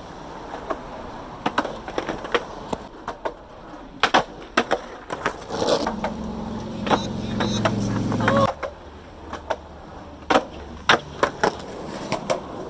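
Skateboard on concrete steps: a string of sharp clacks and knocks as the board's tail and wheels hit the stairs and ground during firecracker attempts down a three-stair. A low hum joins in for a couple of seconds midway.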